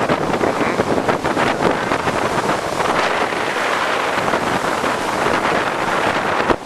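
Strong hurricane wind blowing hard across the microphone, a loud steady rush with the noise of surf mixed in.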